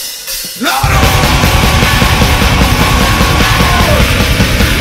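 Heavy thrash/groove metal band recording. After a brief break where the bass and drums drop out, the full band comes back in under a second in, with pounding drums under a long held high note that falls away around four seconds in.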